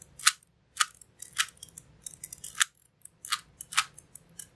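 Plastic Rubik's Cube being turned by hand, its layers snapping round in an irregular run of sharp clicks and clacks.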